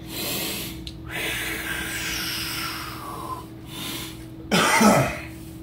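A person breathing deeply: a breath in, then a long breath out with a faint falling whistle, followed by a short, loud cough or throat-clear near the end. A steady low electrical hum runs underneath.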